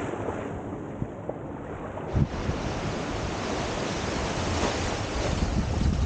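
Small waves washing up onto the sand at the shoreline in a steady wash, with wind buffeting the microphone, stronger near the end.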